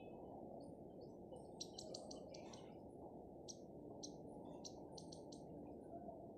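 Faint birds chirping outdoors: short high chirps in quick runs of several notes, twice in the first half and again around the middle, over a steady low background hum.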